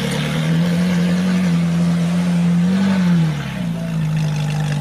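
Sports car engine running steadily, with a brief rise in pitch about three seconds in before it settles lower.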